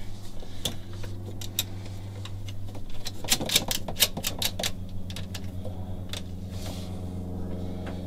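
Scattered sharp clicks and taps of a heavy red battery cable and its metal end being handled against the battery and a terminal block, bunched into a quick run around the middle, over a steady low hum.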